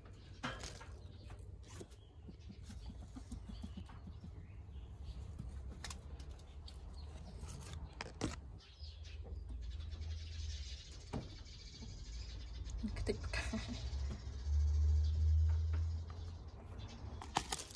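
Outdoor ambience with birds chirping in the background and scattered small clicks, over a low rumble on the microphone that swells loudest about fifteen seconds in.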